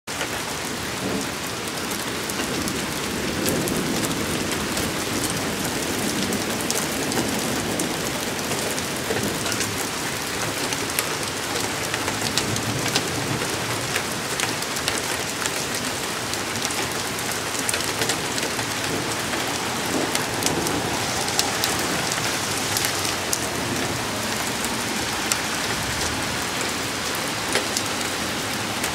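Heavy rain pouring steadily, hissing on pavement and lawn, with close drops ticking sharply on the porch railing. Low rumbles of thunder swell up now and then, around three to seven seconds in and again past twenty seconds.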